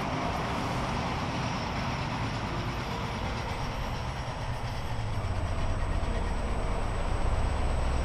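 A freight train of two Ge 4/4 electric locomotives in double traction passing, followed by loaded gravel wagons riding on transporter bogies. A steady rolling noise grows into a heavier, louder low rumble from about five seconds in as the wagons roll by.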